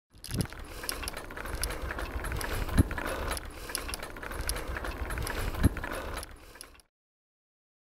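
A bicycle being ridden on a road: steady rattling and clicking from the bike with road rumble, and three heavy knocks about half a second, nearly three seconds and five and a half seconds in. It cuts off suddenly near the end.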